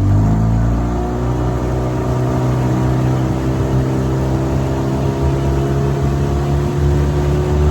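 Hidea 15 hp outboard motor revving up as the throttle opens in the first second, then running steadily at high revs as it drives the boat up to planing speed on a 12-pitch propeller.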